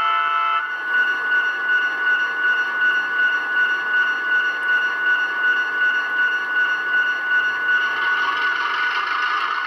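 Sound decoder of a Rapido Trains model FP9A diesel locomotive, playing through the model's own small speaker: a horn chord cuts off just after the start, then the recorded diesel engine sound runs steadily with a throb about twice a second as the locomotive departs.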